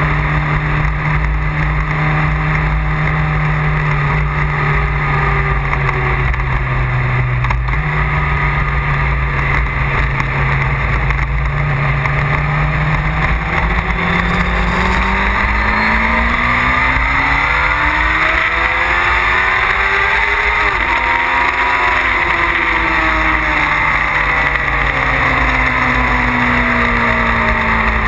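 Motorcycle engine under way, heard from on board over a steady rush of wind. It holds a steady note with one step in pitch, then climbs for several seconds as the bike accelerates. About two thirds of the way through the pitch drops suddenly at a gear change, and after that the note slowly falls.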